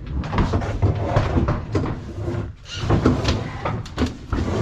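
Heavy items being pushed and shifted about, with a run of knocks, bumps and scraping.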